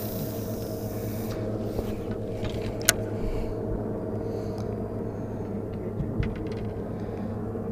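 Electric trolling motor running with a steady hum, with a single sharp click about three seconds in.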